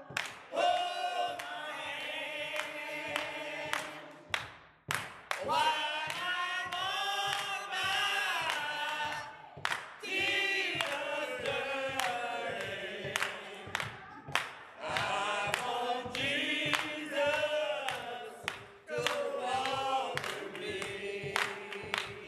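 A small group of voices singing a gospel song together, with hand claps keeping a steady beat.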